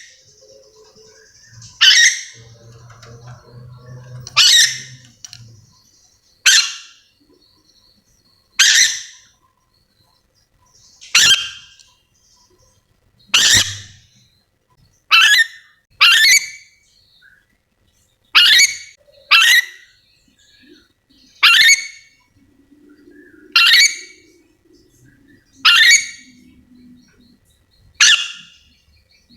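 Ornate lorikeet (nuri dora) giving its shrill calls: about fourteen short, sharp screeches, roughly one every two seconds, some coming in quick pairs.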